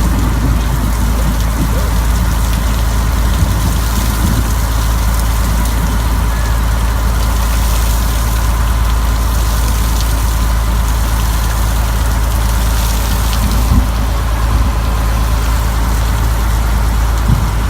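Rain falling steadily on a boat: an even, unbroken noise with a strong low rumble underneath.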